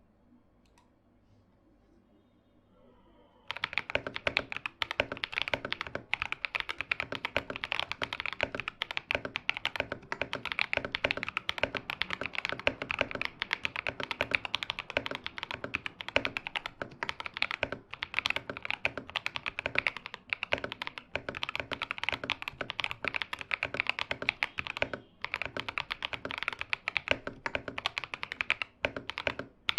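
Near silence, then about three and a half seconds in a mechanical keyboard with factory-lubed Akko CS White tactile switches, foam- and cotton-dampened, is typed on fast and steadily, a dense run of key strokes.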